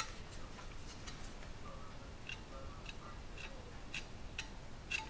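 Faint, uneven clicks and light scrapes of a steel filling knife pressing body filler into a hole in a cast iron gutter.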